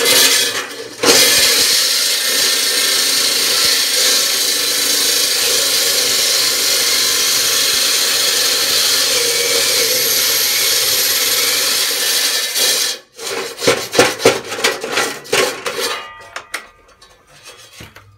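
Electric saw with a diamond blade cutting into a concrete floor, a loud steady grinding whine that cuts off suddenly about 13 seconds in, followed by a few short choppy bursts. The sudden stop fits the saw tripping the breaker, which happens on nearly every cut.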